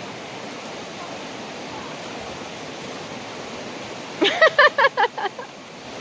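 Steady rush of a mountain stream's flowing water, with a high-pitched voice calling out briefly about four seconds in.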